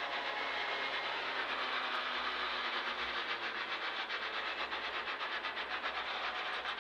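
Mini WRC rally car heard from inside the cabin, its engine running at low revs with a steady note and a fast, even rhythmic clatter, as the car rolls on gently just past the stage finish.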